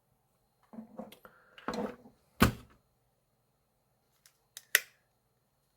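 Small clicks and light metal knocks from the CPU socket's retention lever and load plate being released and lifted, with one sharp click about two and a half seconds in and two quick smaller clicks near the end.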